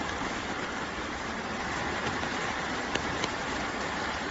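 Swollen floodwater rushing past in a steady, even noise, with two small clicks about three seconds in.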